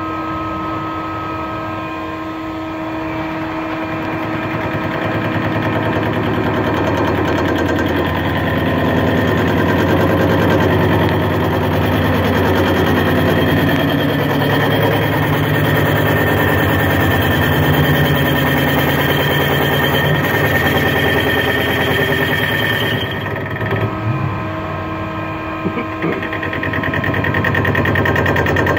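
Mazak CNC lathe turning a crankshaft: the spindle runs steadily while the tool cuts. Several steady tones sit over a rough cutting noise that grows louder after the first few seconds and eases briefly around three-quarters of the way through.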